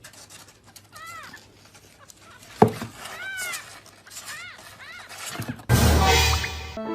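Cat meowing, four short rising-and-falling meows. A single sharp knock comes between the first and second meow, and a loud burst of noise follows about a second before the end.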